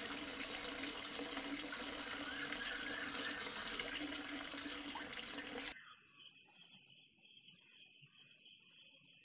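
Water running from a small hose nozzle and splashing over a toy tractor, with a steady low hum beneath; it cuts off abruptly about two thirds of the way in, leaving only a faint background.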